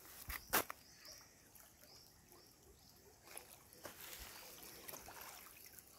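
Faint hiss of a rippling tidal river, with a sharp knock about half a second in and a few lighter clicks later.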